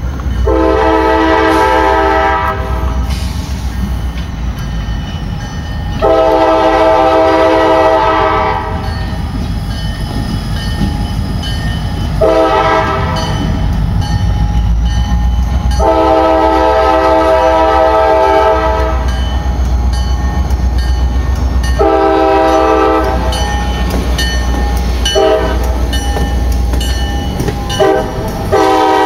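CSX freight train's diesel locomotive sounding its air horn for a grade crossing: a series of long and short blasts, each a chord of several notes, over the low rumble of the engine and wheels. Near the end, hopper cars roll past close by with wheels clacking over the rail joints.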